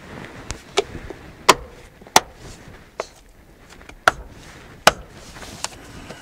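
About seven sharp clicks and knocks, irregularly spaced: a brake master cylinder reservoir cap being pushed and seated down into place.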